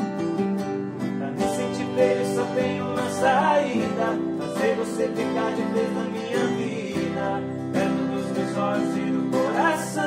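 Three acoustic guitars strumming and picking together in an instrumental passage between sung lines.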